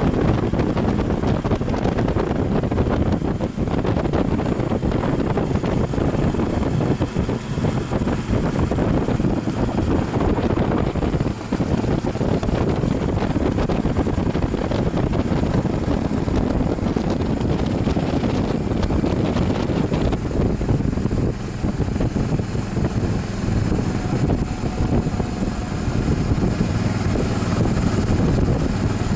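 Wind rushing over the microphone of a moving motorcycle, with the Suzuki V-Strom's V-twin engine running steadily underneath.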